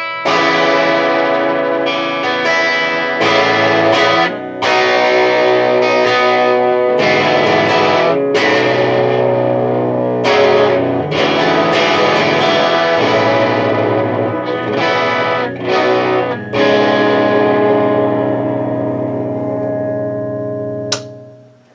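Electric guitar with Bare Knuckle Painkiller pickups, bridge pickup split to single coil, playing chords through a Mesa/Boogie Dual Rectifier amp on its clean channel, picked up by a camera microphone. Chords ring with short stops between them, and a last chord rings out and fades away near the end.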